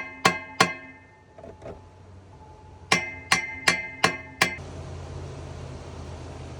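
Hammer blows on metal, each strike ringing on briefly: two quick blows at the start, then a run of five evenly spaced blows from about three seconds in, hammering at a stuck nut to break it loose. A low steady hum comes in after the last blow.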